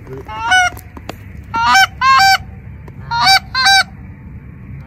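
Goose honking: five loud, clear honks that each break upward in pitch. There is a single honk first, then two quick pairs.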